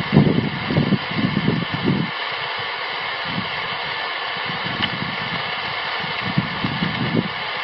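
CB radio receiver on 27 MHz sideband giving out a steady hiss of static from its speaker, with no clear reply on the channel. Muffled, choppy low bursts come through in the first two seconds and again briefly near the end.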